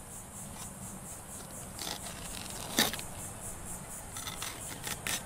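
Fillet knife scraping along a flounder's backbone as a fillet is peeled away, the blade cutting into the skeleton. Quiet scrapes, with one sharp click near the middle and a few light ticks near the end.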